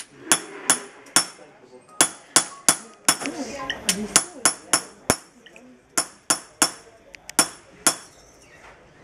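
Small hammer striking copper in quick, uneven groups of sharp, ringing metallic taps, as a copper bracelet plate is worked by hand.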